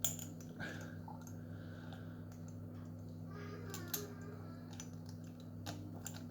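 A handful of light clicks and taps from a glass tincture dropper being worked in its bottle while trying to draw up a full dropper, over a steady low hum.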